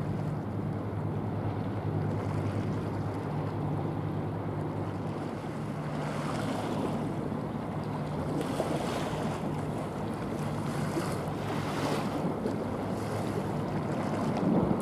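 Wind buffeting the microphone over the wash of waves, surging in gusts in the middle. A steady low hum of two tones runs underneath, fading in and out.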